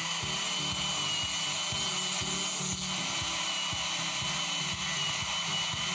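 Plunge router running with a steady high whine as its bit cuts into pink extruded polystyrene foam board, under background music.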